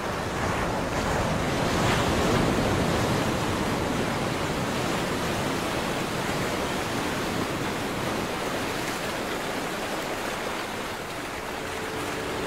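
Sea surf washing in a steady rush that swells about two seconds in.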